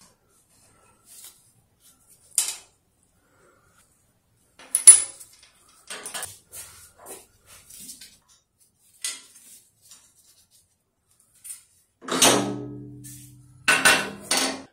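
Wrench and loose steel parts clinking against the cast-iron table saw as bolts and a bracket come out from under the table: scattered sharp clinks, then near the end two louder clanks that ring briefly as metal parts are set down on the table.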